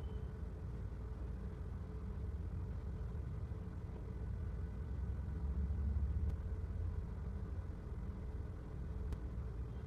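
Steady low background rumble with a faint steady hum, swelling briefly about halfway through, and two faint clicks late on.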